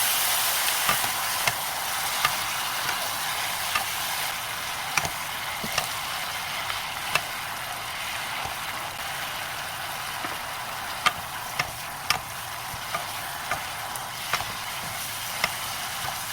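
Sweet potato stems stir-frying in a pan with a steady sizzle. A utensil clicks and taps against the pan at irregular moments as the stems are stirred.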